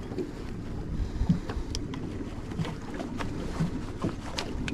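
Steady low noise of a small open fishing boat on the water, with wind on the microphone. A few sharp knocks and clicks come from the landing net and tackle being handled against the boat.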